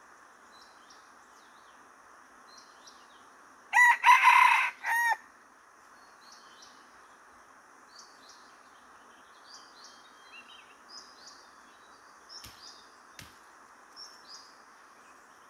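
Red junglefowl rooster crowing once, a loud, clipped crow of about a second and a half in a few parts. Small birds chirp in short high notes throughout, and there are two sharp clicks near the end.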